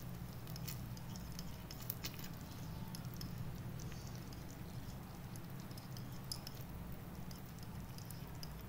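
A tiny spoon stirring sweet red sauce as it simmers in a miniature ceramic saucepan: scattered soft clicks and crackles over a steady low hum.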